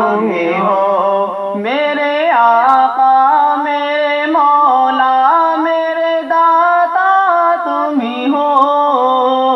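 A male voice singing a naat, an Urdu devotional hymn, without instruments, in long held notes that slide and bend between pitches.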